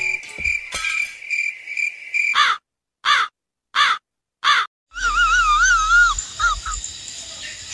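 Four crow caws, evenly spaced with dead silence between them, dropped in as a comic sound effect. They come after a high pulsing beep and are followed by a loud warbling, wavering tone.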